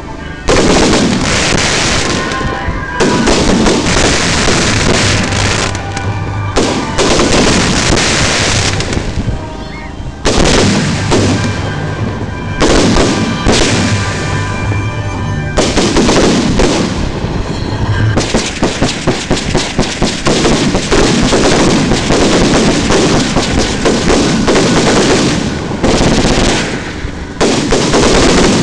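Fireworks being fired at close range: near-continuous loud launching and bangs from a barrage of fountains and comets, with a fast run of sharp cracks around twenty seconds in.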